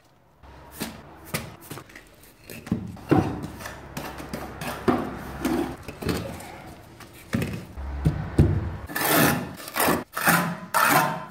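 Steel trowel scraping and spreading freshly mixed tile adhesive onto aerated concrete blocks: a run of irregular scrapes, the loudest and hissiest near the end.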